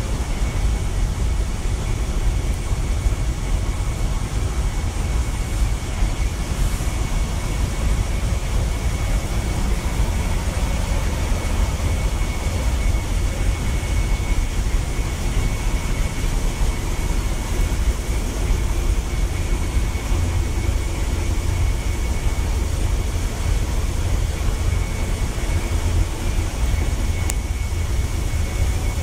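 Steady low drone of a ship's engine-room machinery heard inside the engine control room, with a thin steady high whine above it. A tiny click sounds near the end.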